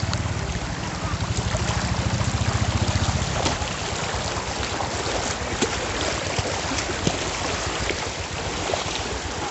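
Shallow stream rushing steadily over pebbles and stones, with a low rumble for roughly the first three seconds and a few sharp knocks scattered through.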